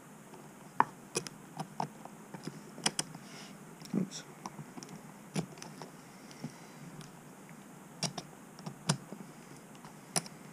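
Irregular light clicks and taps of small plastic and metal model parts being handled: the metal steering rod and its plastic ball-end rod ends being adjusted and fitted on a 1/14 scale RC truck's front axle. The loudest click comes about a second in.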